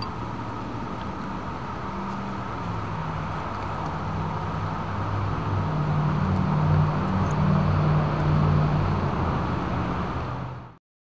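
Steady low engine hum that grows louder over several seconds, then cuts off abruptly just before the end.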